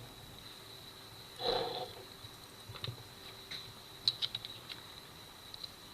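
Small hard parts being handled: a Swiss Army knife and its new plastic scales. A brief rustle about a second and a half in, then scattered light clicks and taps, with a quick run of them around four seconds in.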